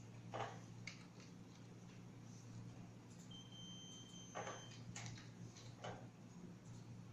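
One steady, high electronic beep lasting about a second and a half near the middle: the Morse code translator's tone output. A few faint taps fall around it, over a low steady hum.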